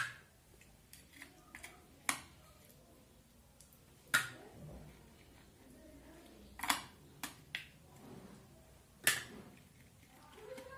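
Metal fork and knife clinking against a ceramic plate while pulling the stones out of soft cooked peaches: about six sharp clinks a couple of seconds apart, with quieter taps between.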